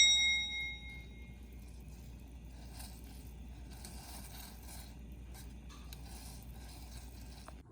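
Music cutting off, a few of its high notes ringing out briefly, then faint background noise with soft scattered rustles.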